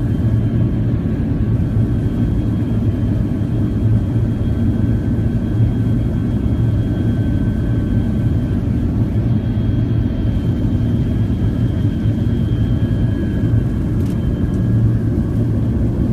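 Steady cabin noise of a jet airliner in flight, heard from inside: an even low roar of engines and rushing air with a faint high whine.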